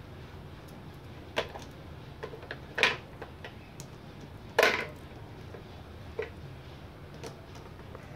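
AA batteries being pried out of a digital postal scale's plastic battery compartment and dropped on the floor: a handful of sharp plastic clicks and knocks, the loudest about three and four and a half seconds in, over a steady low hum.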